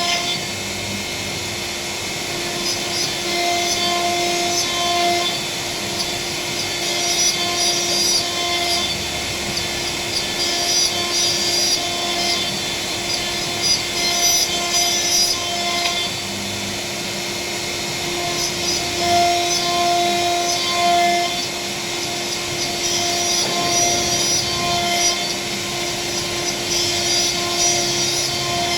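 CNC router spindle running with a steady whine while its bit cuts a decorative panel. The rough cutting noise rises and falls every second or two as the tool moves along its path.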